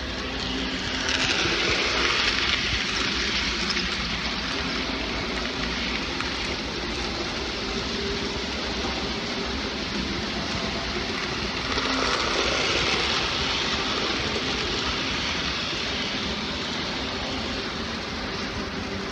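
N-scale model trains running on the layout: a steady whirring and rolling of small electric motors and wheels on the track, swelling twice as trains pass nearer.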